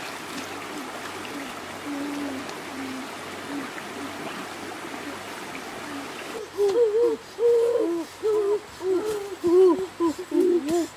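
Shallow stream water running and splashing. About six seconds in, a loud run of short hooting calls begins, each rising and falling in pitch, several overlapping at different pitches.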